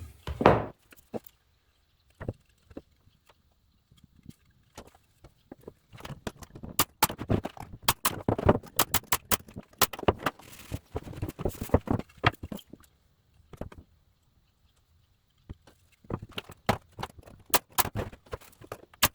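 Wooden toolbox tray parts being handled and fitted together: runs of sharp, irregular knocks and clicks of wood on wood. There is one strong knock at the start, a dense stretch a few seconds in, a short lull, and another run near the end.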